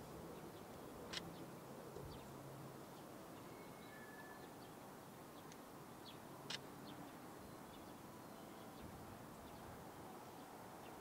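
Quiet outdoor ambience with a few brief, faint bird chirps; the sharpest come about a second in and again past the six-second mark.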